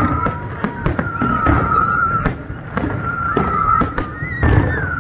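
Fireworks display: aerial shells going off in a rapid, irregular string of bangs, several a second. Over them a high, wavering whistle sounds in stretches of about a second.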